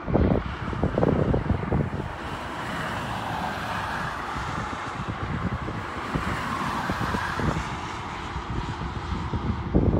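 Wind buffeting the microphone in gusts, with road traffic passing; through the middle, a vehicle's road noise swells and fades.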